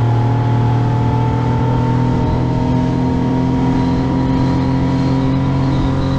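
Suzuki 60 hp four-stroke outboard motor running steadily at high throttle, pushing the boat at speed, its pitch creeping up slightly, over the rush of the wake.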